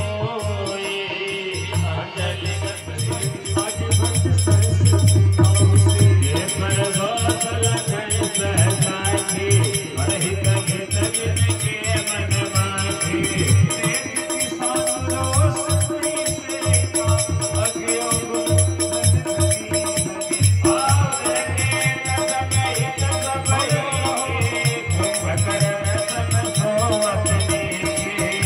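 Instrumental devotional music: a harmonium plays a sustained melody over steady dholak drumming, with a small shaken hand percussion jingling along throughout.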